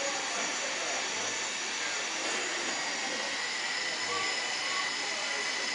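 Steady jet-engine hiss with a faint high whine, played back as the model airport's aircraft sound effect, over a low murmur of crowd voices.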